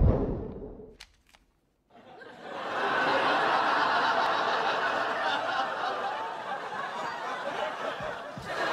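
Studio audience laughing, building up about two seconds in and carrying on steadily, after a loud low sound dies away in the first second.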